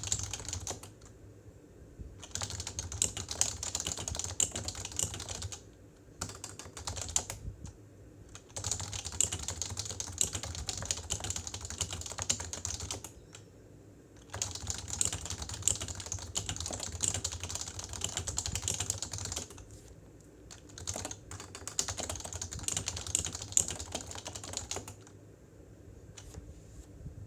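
Fast typing on a PFU Happy Hacking Keyboard Professional 2 with Topre 45 g electro-capacitive switches: rapid key clacks in runs of several seconds, broken by short pauses about six times.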